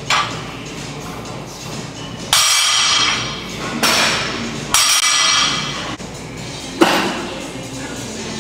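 Loaded barbell clanking during deadlift reps: several sudden metallic clanks of the weight plates, each ringing for about a second, the sharpest near the end. Background music runs underneath.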